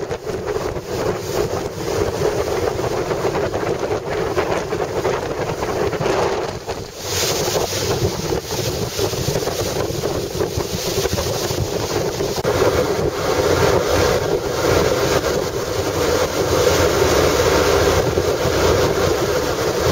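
Small passenger ferry under way: its engine running steadily, with wind buffeting the microphone and the hiss growing brighter about seven seconds in.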